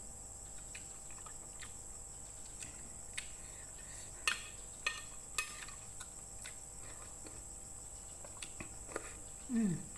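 Eating sounds: a metal spoon and fork clinking against a ceramic plate a few times around the middle, over a faint steady high-pitched tone. Near the end comes a short falling hum from the eater as she takes a spoonful of soup.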